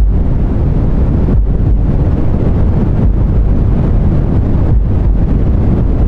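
Deep white noise: a loud, steady hiss heavy in the bass. Brief dips in pairs about every one and a half seconds give it a slow heartbeat rhythm.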